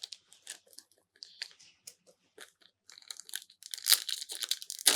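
Foil booster-pack wrapper crinkling and being torn open. It starts with a few light clicks of card handling, and the crinkling turns dense and loud in the last two seconds.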